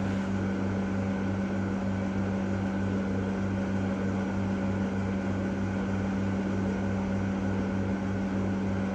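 Steady mechanical hum, like a running fan or air-conditioning unit: one constant tone over a low throb that pulses a few times a second, with no tool noise.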